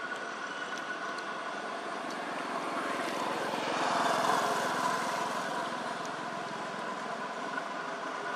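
A motorbike passing by, its engine growing to its loudest about four seconds in and then fading, over a steady background hum.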